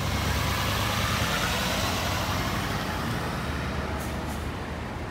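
Fire engine's diesel engine running steadily before pulling out of the station bay, with a broad hiss over it that eases slightly. Two faint high clicks come about four seconds in.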